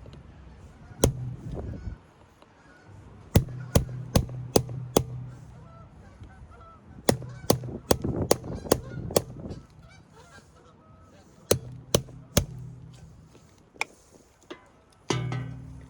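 Sharp impacts in quick runs of three to five, like a tool striking and knocking apart parts of a forklift battery. A low droning hum comes and goes between the runs.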